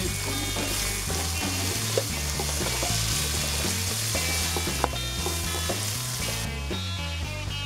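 Julienned carrots sizzling in hot oil in a wok as they are stirred with a metal spatula, with a few sharp clicks of the spatula on the pan. The sizzle falls away near the end. Background music with a bass line plays throughout.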